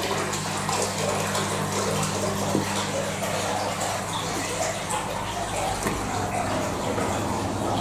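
Two submersible pumps running steadily in a flood testing tank, with a low hum and the sound of rushing water as they drain it.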